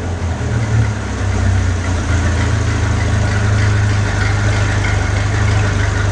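Ferrari V8 with an aftermarket Fi Exhaust system falling back from a rev and settling into a steady idle within the first second or two.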